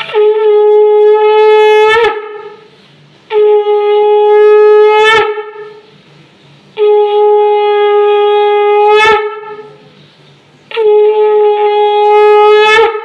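Conch shell (shankha) blown in four long blasts, each about two seconds at one steady pitch and ending in a quick upward flick.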